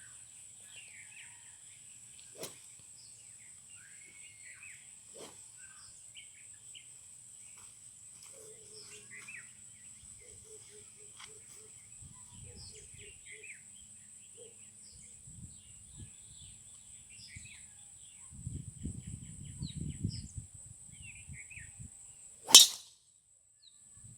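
Birds chirping over outdoor ambience, with gusts of wind rumbling on the microphone twice. Near the end, one sharp, loud crack of a golf driver striking the ball off the tee.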